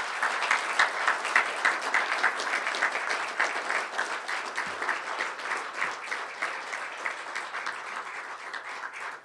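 Audience applauding: a steady round of many hands clapping that eases off near the end.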